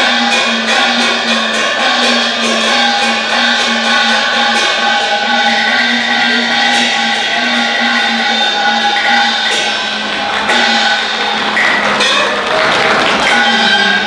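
Cantonese opera accompaniment band playing the instrumental introduction: held melody lines over a steady beat of percussion strokes. A stretch of audience applause joins about twelve seconds in.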